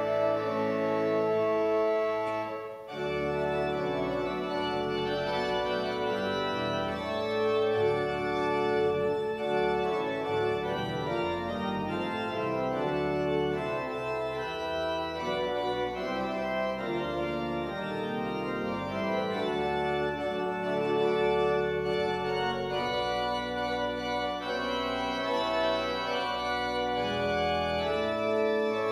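Pipe organ playing sustained chords over low bass notes. The sound breaks off briefly about three seconds in, then the chords resume and move on steadily.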